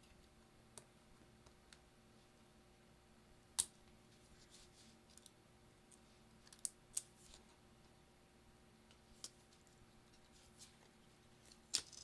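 Scattered sharp clicks and taps of small tools and tiny metal parts being handled during an iPhone 6 teardown, over quiet room tone; the loudest clicks come about three and a half seconds in and near the end.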